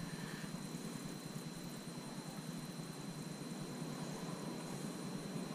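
Steady low background rumble with a faint thin high tone, without distinct clicks or knocks.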